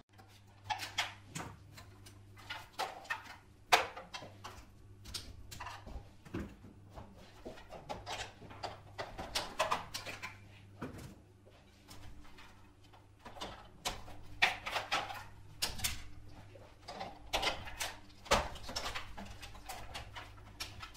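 Fast-forwarded handling sounds of cables being cut and pulled off a CRT television: irregular clicks, snips and rattles of wire and plastic casing, over a steady low hum.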